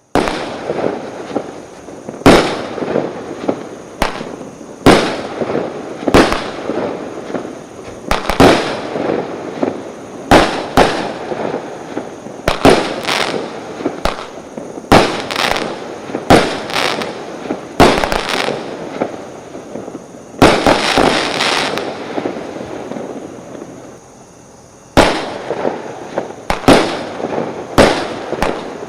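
Consumer firework cakes (batteries of 16 to 19 shots) firing shot after shot: a sharp bang every second or two, each followed by crackling. A run of dense crackling comes about 20 seconds in, then a short lull before the firing starts again.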